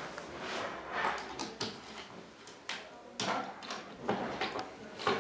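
Particleboard cabinet panels being handled and pressed into place, with irregular shuffling and scraping and several short wooden knocks, the sharpest near the end.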